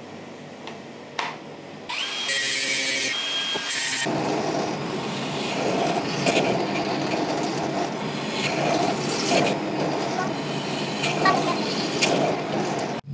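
An Ingco cordless angle grinder starts with a click and runs for a couple of seconds with a steady high whine on a used steel rail. Then a benchtop drill press drills into the steel bar, a loud, rough, uneven machining noise that goes on for the rest of the time.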